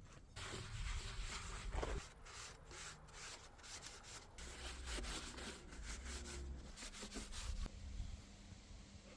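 Hand sanding of wood: back-and-forth rubbing strokes, about three a second, that stop near the end.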